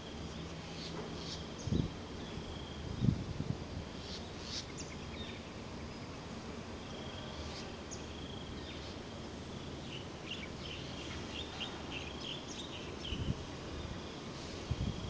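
Outdoor ambience of birds chirping in trees: scattered short, high calls over a steady low background hum. Two dull bumps come about two and three seconds in.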